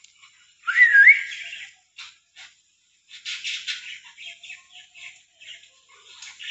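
Rainbow lorikeets calling: about a second in, a loud whistled call that glides up, dips and rises again over a harsh screech. From about three seconds, a run of short, quick chattering chirps follows.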